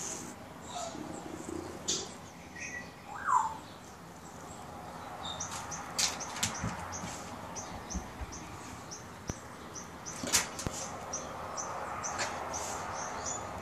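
Small birds chirping in short, high, quickly repeated notes, with one short rising call about three seconds in. Scattered sharp scratches and taps come from a cat rolling and pouncing on a coarse mat.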